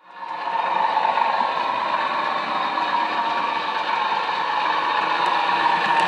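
Model railway train running along the track: a steady mechanical running sound that fades in at the start.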